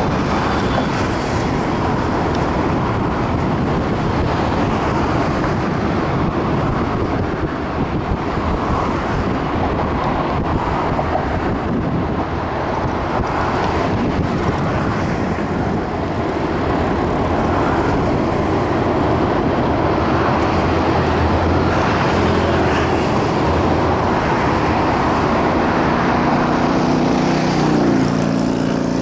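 Hanshin electric train running across a steel truss river bridge: a steady distant rumble blended with road traffic noise.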